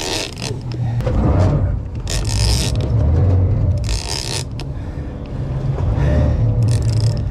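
Boat engine running with a steady low rumble under repeated short bursts of hiss, while a Shimano lever-drag game reel is cranked under load against a hooked tuna.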